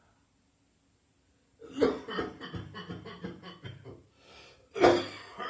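A person coughing in fits: a loud cough about two seconds in runs into a rapid string of shorter coughs, and a second loud cough comes near the end.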